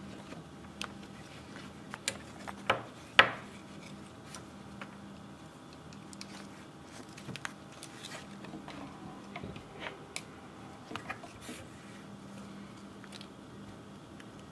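Scattered small clicks and rubbing from an oscilloscope probe and its ground clip being handled and hooked up, with one sharper click about three seconds in. A faint steady hum runs underneath.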